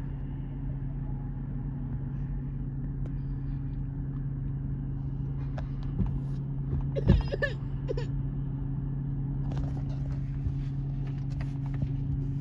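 A steady low mechanical hum, with a short louder sound about seven seconds in.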